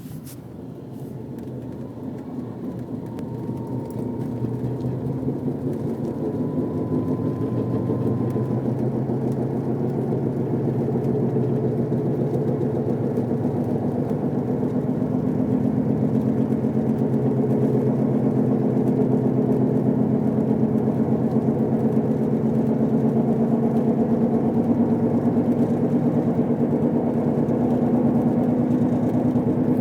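Grinding, whining drone from a car while driving, the noise that began right after its wheel bearings were replaced. It grows louder over the first ten seconds or so, then holds steady.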